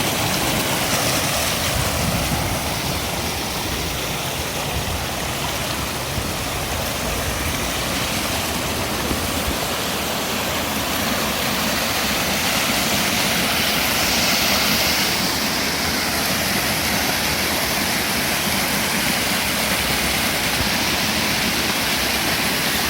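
Small waterfall of creek floodwater pouring and splashing in a steady, unbroken rush.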